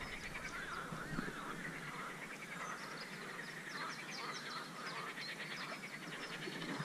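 Faint, steady chorus of many overlapping short animal calls from the pond, repeating throughout.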